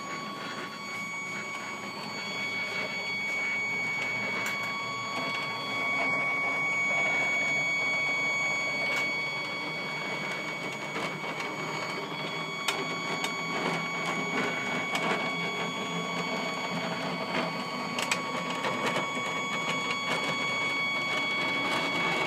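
Stepcraft 840 hobby CNC machine driving an axis to its home position: stepper motors running with a steady high whine, over a rattling bed with scattered clicks. To the owner it does not sound right, and he takes it for a sign of issues in the axis, which has 2–3 mm of play.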